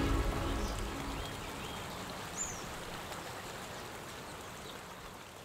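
Steady rushing of a river or stream, slowly fading down, with a few short bird chirps. The tail of a music track dies away in the first second.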